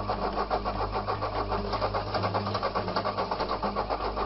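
Mercedes-Benz W123 saloon's starter cranking the engine over in a steady, even rhythm of about five pulses a second, without it catching.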